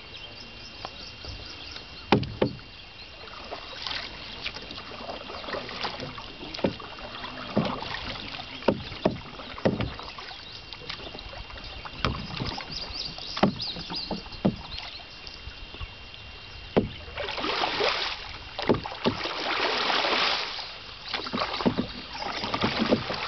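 Canoe paddling: a wooden paddle dipping and pulling through river water, with irregular sharp knocks of the paddle against the canoe's hull. Near the end come a couple of longer, louder splashing strokes.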